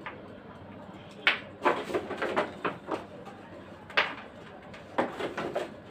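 A box being handled on a tabletop: a few bursts of short knocks and scrapes as it is lifted and moved about.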